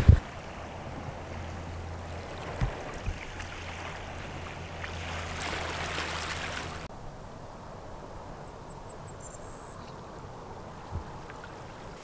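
Seaside ambience: a steady hiss of wind and gently lapping water, with a low hum under it that stops abruptly about seven seconds in. After that it is quieter, with a few faint high chirps.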